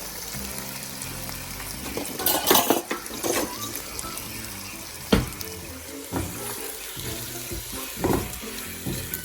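Marinated chicken sizzling in hot oil in a pan: a steady hiss, broken by a few sharp scrapes and knocks of a utensil against the pan. The loudest come about two seconds in and again around five and eight seconds.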